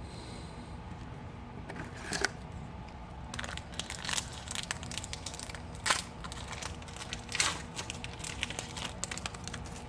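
Plastic-foil wrapper of a trading-card pack crinkling and crackling in irregular bursts as it is handled and torn open, with a few louder crinkles.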